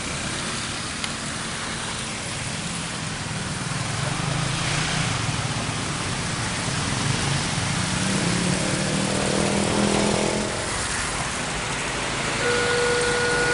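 Road traffic with motorcycle engines passing, one engine note rising and falling away around the middle. Near the end a railway level crossing's electronic warning alarm starts sounding, steady alternating beeps at two pitches, signalling that a train is approaching.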